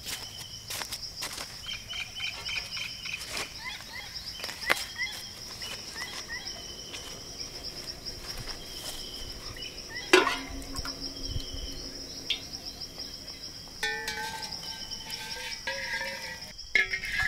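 Steady high chirring of crickets and other insects, with scattered knocks from aluminium cooking pots being handled; the loudest is a single ringing clank about ten seconds in.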